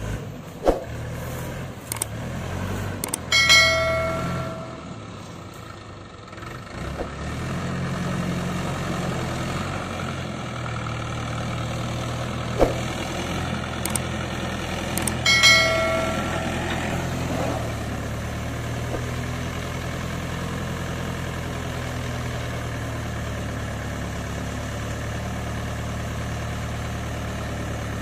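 Mahindra 575 DI tractor's four-cylinder diesel engine running steadily, picking up revs around eight seconds in. Twice a short chime rings out over it, near the start and about halfway through.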